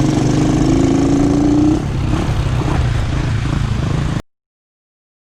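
Motorcycle engine running under throttle, its pitch rising for nearly two seconds before easing off, then cutting off abruptly to dead silence about four seconds in.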